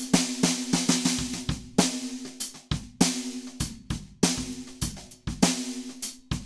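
Sakae 14 x 6.5-inch black-nickel-plated brass snare drum played in a groove with hi-hats and kick drum. Strong strokes fall about every 0.6 s, with lighter notes between, and each hit leaves a ringing tone. The heads are tuned fairly loose and the top head is damped with an o-ring.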